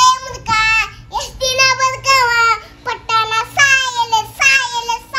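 A young boy singing a song in a high voice, in several drawn-out phrases with notes that slide up and down, with no instruments.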